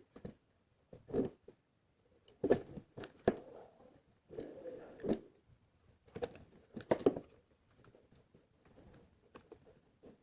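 Hands handling small parts and wires in a small room: scattered, irregular clicks, taps and rustling scrapes, with short pauses between them.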